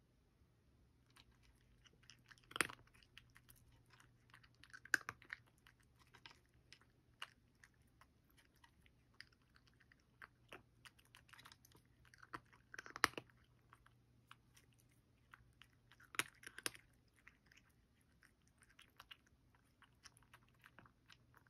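Cat chewing dry kibble: faint, irregular crunching and small clicks, with a handful of louder crunches spread through.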